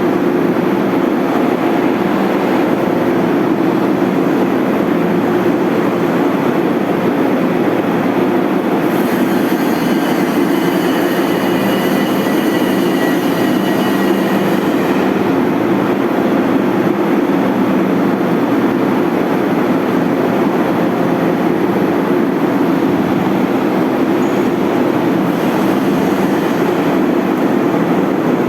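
A machine running steadily and continuously at a constant level, with a hum concentrated low in pitch. An added hiss joins it for several seconds about a third of the way in and again near the end.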